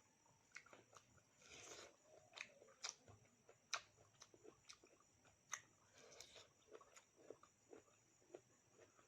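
Quiet close-up chewing and eating, with irregular crisp crunches and mouth clicks as food is bitten and chewed.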